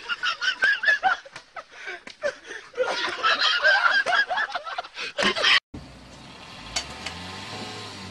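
People laughing hard in short, repeated bursts; the laughter cuts off abruptly about five and a half seconds in and gives way to a quieter, steady low hum.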